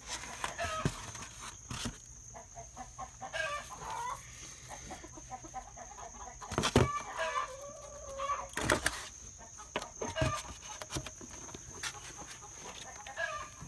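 Hens calling and cackling in a coop in agitated bursts, a long drawn-out call about seven seconds in; the keeper suspects a hawk alarmed them, though hens make the same noise after laying. Several sharp knocks and clatters, the loudest about seven and nine seconds in, come from egg collecting with a plastic egg flat.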